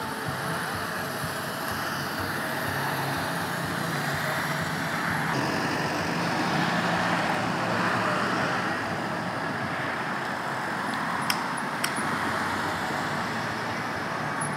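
Road traffic on a busy multi-lane road: cars passing with engine and tyre noise that swells a little around the middle. Two short sharp clicks sound close together about two-thirds of the way through.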